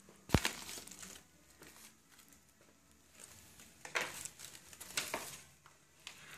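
Faint rustling and handling of a cardboard box and packaging, with a single sharp thump about a third of a second in and a few soft rustles near the middle and end.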